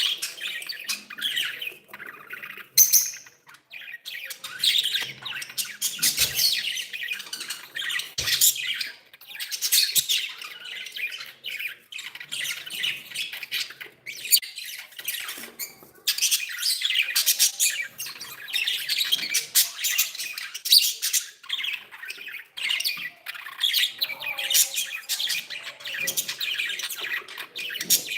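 Several budgerigars chattering and warbling continuously, with rapid squawks and chirps and brief pauses in between.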